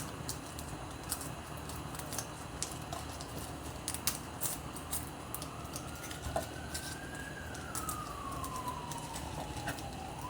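An emergency vehicle siren wailing: a single tone that comes in about halfway through, rises, falls slowly, then starts rising again near the end. Light clicks and taps sound throughout.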